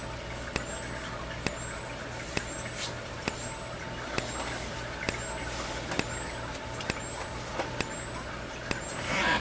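Wheelock fire-alarm strobe flashing about once a second: each flash gives a sharp click, followed by a high-pitched whine as it recharges, over a steady low electrical hum. A brief rustle comes near the end.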